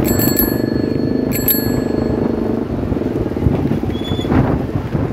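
Bicycle bell rung twice, once at the start and again about a second and a half later, the second ring hanging on for about a second. Under it, a steady rumble of wind on the microphone as the bicycle rides along.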